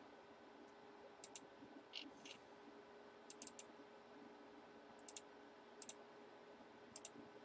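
Faint clicks of a computer mouse, several short clusters of sharp clicks every second or two, with a brief soft swish about two seconds in, over low room hum.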